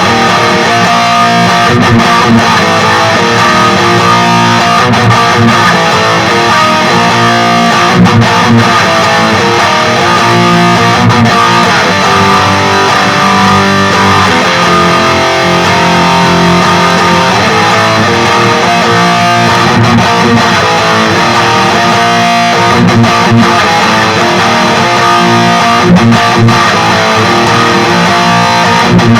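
ESP LTD Deluxe electric guitar with active pickups played through a Peavey Vypyr 15-watt modelling amp set to its XXX amp model, playing riffs and strums without a break.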